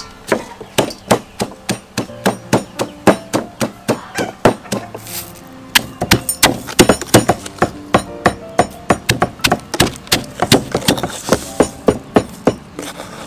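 Stone pestle pounding red chilies, garlic, salt and sugar in a stone mortar: a steady run of sharp knocks, about three a second at first and quickening to about four a second after some six seconds.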